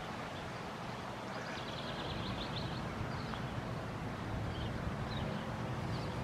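Small birds chirping in short repeated trills over a steady low outdoor rumble.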